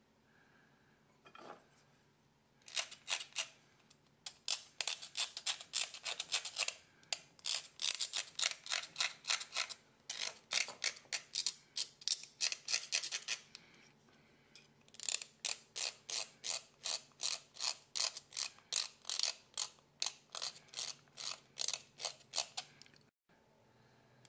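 A small hand carving blade scraping and shaving tagua nut (vegetable ivory) in quick, short strokes, about three a second. The strokes pause for about a second past the middle, then resume and stop abruptly near the end.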